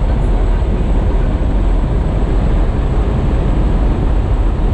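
Loud, steady rush of wind and engine noise in a light aircraft's cabin, with the jump door open in flight.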